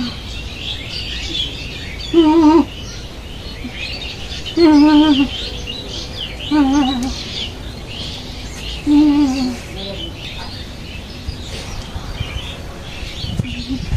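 Small birds chirping and twittering continuously. Four times, two to three seconds apart, a louder half-second call with a wavering pitch cuts through.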